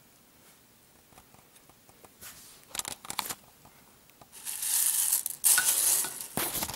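Plastic bag crinkling and rustling as it is handled, loud for the second half, after a few light clicks.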